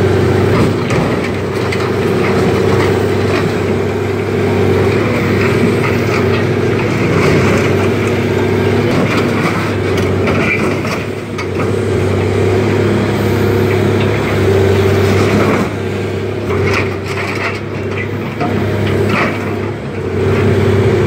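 Excavator's diesel engine running steadily under load, with metal scraping, crunching and clanking as its grapple tears at a wrecked vehicle.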